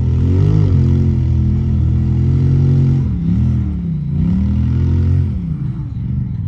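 Off-road Jeep engine running under load and revving, its pitch rising and falling over and over, dipping twice about three and four seconds in, then easing off about five seconds in.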